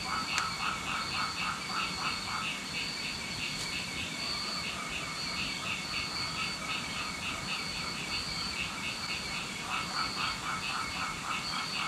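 A chorus of frogs calling together: several overlapping runs of short, rapidly repeated notes, each at its own pitch, from high to mid.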